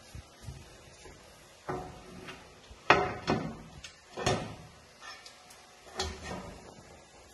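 Panels of a tile display stand moved by hand in their metal frames: a series of about five knocks and clatters, the loudest about three seconds in.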